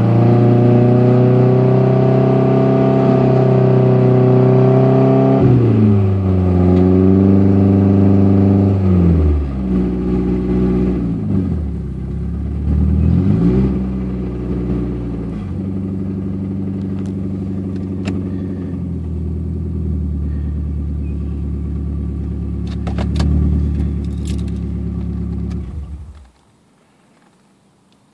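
1998 Toyota Camry's engine running at raised revs, dropping in steps about five and nine seconds in, with a brief rev around twelve seconds. It then idles steadily and cuts off suddenly near the end.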